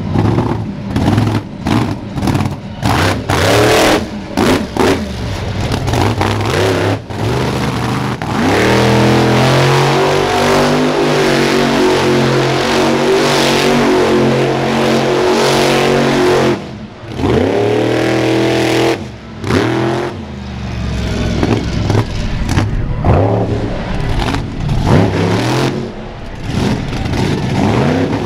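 Monster truck built as a giant quad (ATV) with its engine revving hard. For the first several seconds it comes in short bursts. It is then held at high revs for about eight seconds, drops briefly, climbs again, and goes back to uneven blips of throttle.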